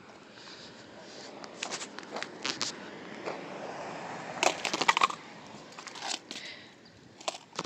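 Skateboard wheels rolling over rough asphalt, with scattered clacks and a quick run of loud clattering knocks about four and a half seconds in.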